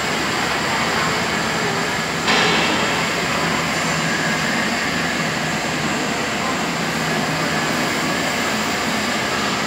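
Steady hissing noise with an underlying hum, typical of argon (TIG) welding in a workshop. About two seconds in it steps up suddenly, louder and brighter, and then holds steady.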